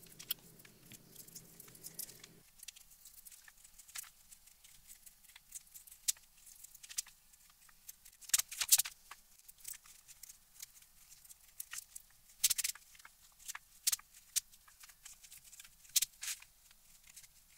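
A knife scraping and prying dry pastedown paper off a book's binder's board, with irregular sharp scratches and small crackles as pieces of paper lift away.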